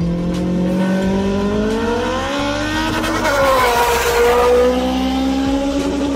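Four-cylinder car engine held at high revs as the car speeds past, its pitch climbing and then dropping sharply as it goes by about three and a half seconds in.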